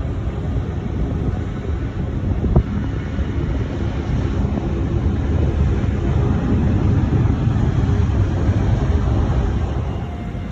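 Jet airliner engines rumbling, swelling to a peak past the middle and easing off near the end, with wind buffeting the microphone. A single sharp click about two and a half seconds in.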